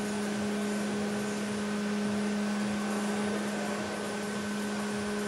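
Bank of electric wind fans running steadily: an even rush of air with a constant hum.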